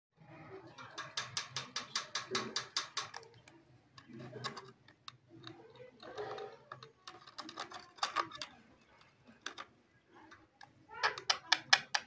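Ringneck parrot rapidly tapping its beak against a small mirror: a quick run of about six sharp clicks a second, scattered single taps, then another fast run near the end. Soft, low calls from the bird come between the runs of taps.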